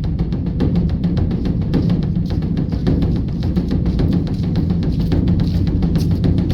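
A large temple drum beaten in a fast, even run of strokes, several a second, with a steady low ringing hum beneath.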